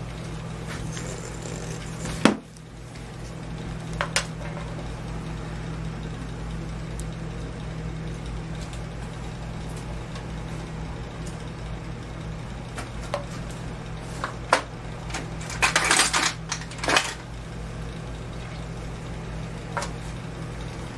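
Steady low electrical hum from the workshop, broken by a handful of sharp metallic clinks and knocks of things being handled: a loud one about two seconds in and a quick cluster around sixteen seconds.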